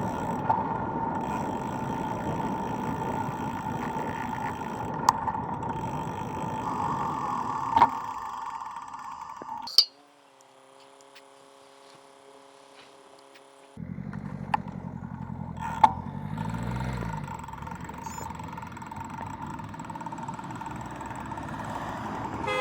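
Street traffic heard from a moving bicycle: steady road and wind noise with a few sharp clicks, and a car going past in the second half.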